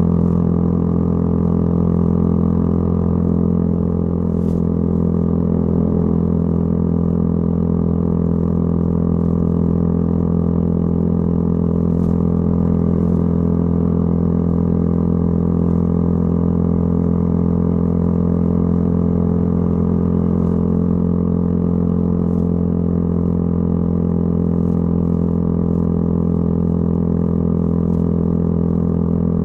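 Yamaha YZF-R125's single-cylinder four-stroke engine running through a modified aftermarket exhaust, a steady drone that holds one unchanging pitch throughout.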